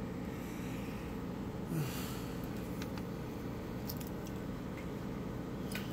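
Steady low background hum, with a few faint light clicks and taps from small objects being handled.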